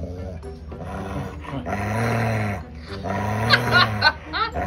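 Rough collie howling: two long calls that rise and fall, then short high yelps near the end.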